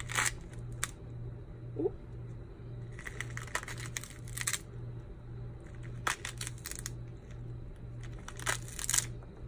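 Pomegranate rind cracking and tearing as hands pry the scored fruit apart into segments: a string of short crisp cracks, with a cluster about three to four and a half seconds in and more near six and nine seconds. A low steady hum runs underneath.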